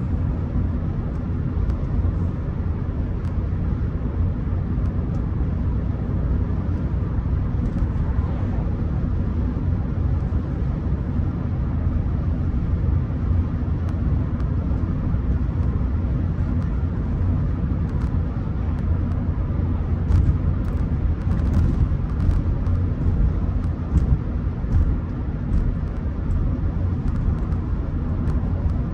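Rolls-Royce Silver Spirit under way, heard from inside the car: a steady low rumble of engine and road noise.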